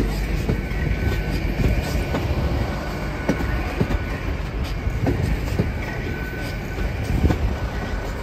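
LNER Azuma Class 800 train rolling slowly into the station. Its wheels give a low rumble and irregular clicks over rail joints, with a faint high squeal now and then.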